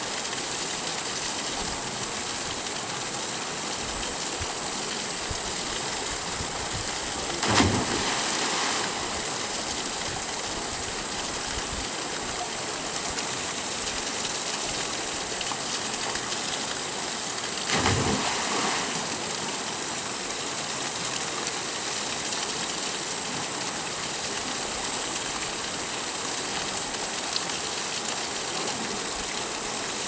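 Steady rush of a small waterfall pouring into a rocky pool, with two sudden splashes of people jumping feet-first into the water from the rock ledge, about seven seconds in and again about eighteen seconds in.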